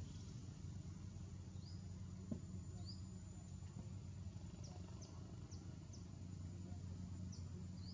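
Outdoor ambience: a steady low hum, with brief high chirps scattered through it. The chirps come in a quick run of four about halfway through, and there is one soft click a little over two seconds in.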